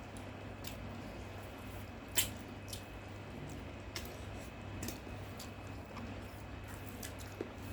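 Eating sounds: scattered short clicks and smacks of chewing and utensils, the loudest about two seconds in, over a steady low hum.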